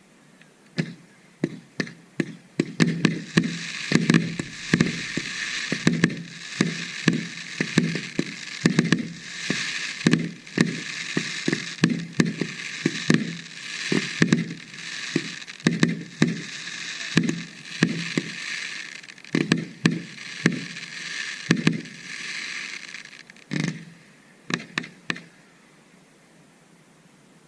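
Fireworks display: a rapid, continuous series of aerial shell bursts, many bangs a second at its peak, over a steady high hiss. It thins to a few last bangs and stops near the end.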